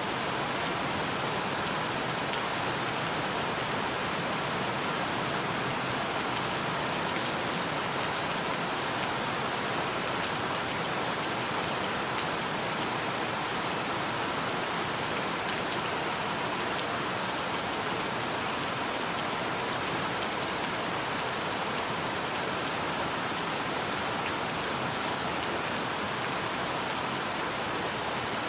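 Steady rainfall: an even hiss of many drops, with faint individual drop ticks, holding at one level throughout.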